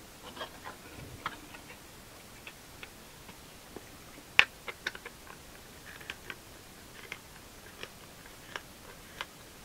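Tin snips cutting a thin sheet of 8-thou shim stock: a scattering of short, sharp snips and clicks at irregular intervals, the loudest about four and a half seconds in.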